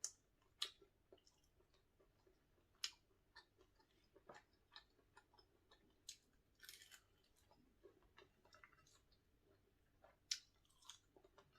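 A person chewing food close to the microphone: faint, irregular mouth clicks and short wet smacks, a few sharper ones standing out about three seconds in and near the end.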